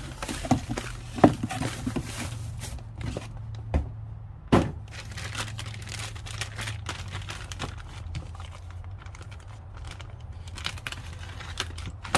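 Packaging crinkling and tearing as new aluminum socket rails are unwrapped and handled, with scattered sharp knocks and clicks, the two loudest about a second and four and a half seconds in, over a steady low hum.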